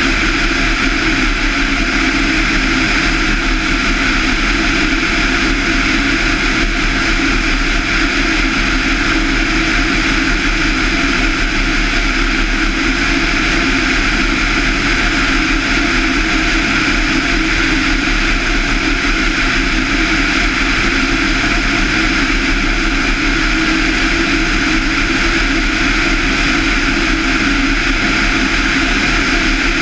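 Van's RV-7's 200 hp four-cylinder Lycoming IO-360-A1A engine and propeller droning steadily in flight, at an unchanging power setting.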